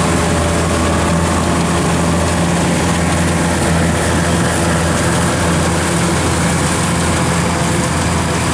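Kubota DC-93 combine harvester's diesel engine running steadily under load while it cuts and threshes rice, a constant low drone.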